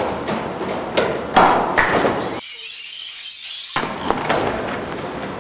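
A few sharp thuds, then a crash of shattering glass a little past the middle that rings on and fades.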